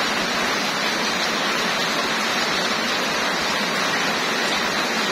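Heavy rain pouring onto a waterlogged street, an even hiss that holds steady without a let-up.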